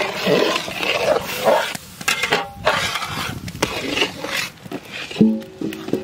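Thick mango paste sizzling and slopping in a hot metal kadai as a long metal ladle stirs it, scraping and knocking against the pan several times. A brief low pitched call about five seconds in is the loudest sound.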